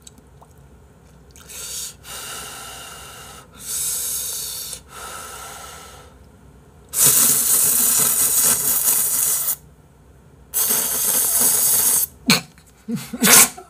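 Ramyun noodles being slurped in several long, airy pulls, the loudest about seven seconds in, with a few short sharp bursts near the end.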